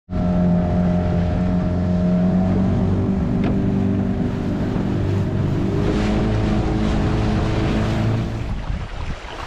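Outboard motor of an aluminium tinny running steadily under way, its pitch shifting a little midway and falling away near the end, with wind and water noise beneath.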